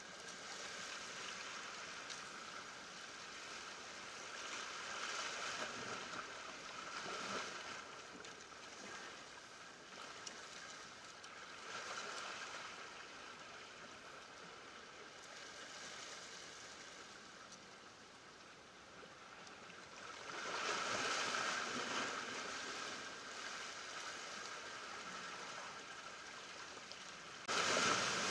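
Small sea waves washing and splashing over shoreline rocks, swelling and falling back every several seconds, with an abrupt jump to a louder wash near the end.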